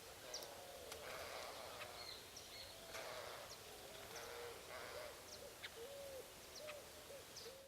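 Birds calling faintly: a run of low hooting notes, each briefly rising and falling, coming about twice a second in the second half, with short high chirps from other birds over the top.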